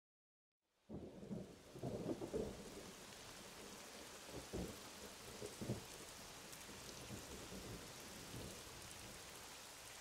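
Rain with low rumbles of thunder, starting suddenly about a second in; the rumbles come in the first half, then the rain settles to a steady hiss.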